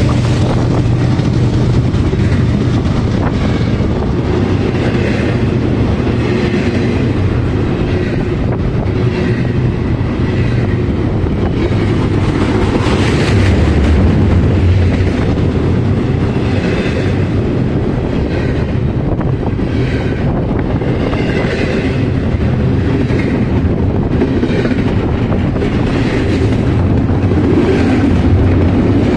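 Double-stack intermodal container well cars rolling past at close range: a loud, steady rumble of steel wheels on rail, with a clatter that recurs every second or so as the wheels cross rail joints.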